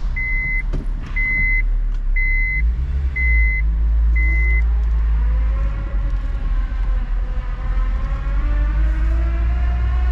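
Acura RSX's four-cylinder engine running while the car drives, its pitch rising as it speeds up in the second half. A high beep sounds about once a second for the first four or five seconds.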